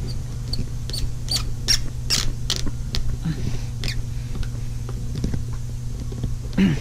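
Small screw squeaking and clicking in short bursts as a hand screwdriver turns it into a sun visor's chrome hinge bracket, over a steady low hum.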